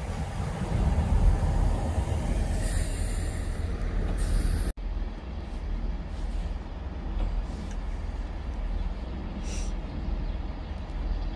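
GWR Class 166 Turbo diesel multiple unit coming to a stand at the platform: a steady low diesel engine rumble, with hisses of air from the brakes, one lasting about two seconds and a few short ones later.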